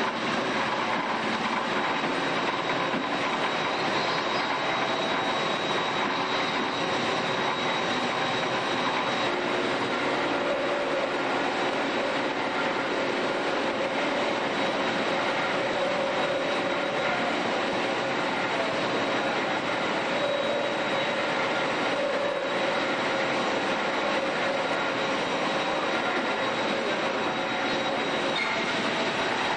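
HEMSAW DC8080 industrial bandsaw cutting through a pickup truck, a steady metallic grinding din with a constant high whine that does not let up.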